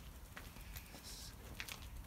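Faint outdoor background: a steady low rumble with a few light ticks and rustles, and a brief hiss about a second in.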